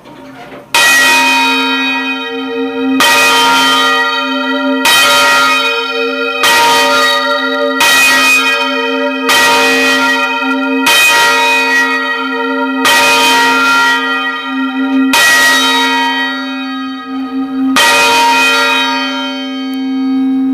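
Church bells rung full circle, heard close up in the bell chamber: about ten loud strokes, one every couple of seconds, each ringing on with many overtones into the next.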